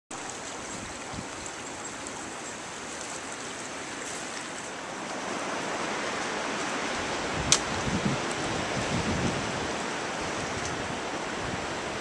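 Steady rushing of a small woodland creek. One sharp click comes a little past halfway, followed by a few low thumps.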